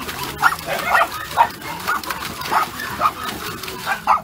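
Dogs barking in quick, short, high yips, about three a second.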